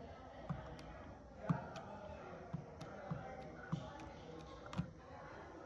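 A series of dull thumps, each with a sharp click, coming irregularly about once a second, over faint background voices.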